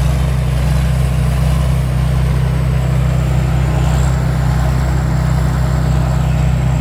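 Chao Chang WiFi 2024 combine harvester running steadily, a constant low diesel drone with a thin high whine above it.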